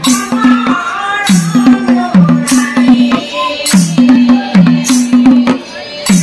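Devotional group music: a hand drum playing a steady rhythm of low strokes that drop in pitch, with cymbals clashing about once a second. Women sing and clap along.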